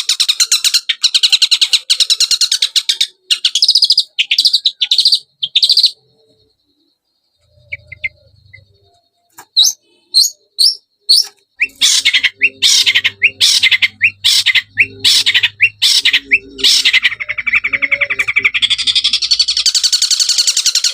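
Long-tailed shrike (cendet) song played as a lure recording: fast, high, chattering trills that stop about six seconds in, then after a pause a run of loud, separate sharp notes leading back into rapid trilling.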